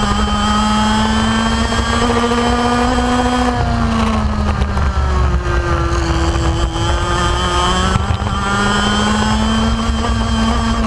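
125cc two-stroke kart engine heard onboard, revving up along a straight, then dropping off about three and a half seconds in as the kart slows for a corner. It climbs again out of the corner and falls once more near the end.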